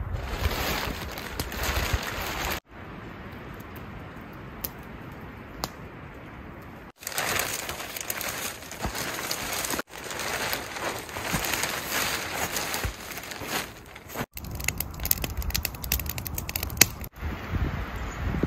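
Tarp sheeting and canvas rustling and crinkling as they are handled and pulled into place for a shelter. It comes in several short stretches that break off abruptly, with sharp crackly clicks near the end.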